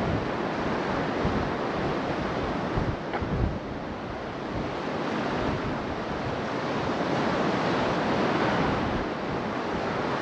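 Sea surf washing against the shore, swelling a little louder about eight seconds in, with wind on the microphone.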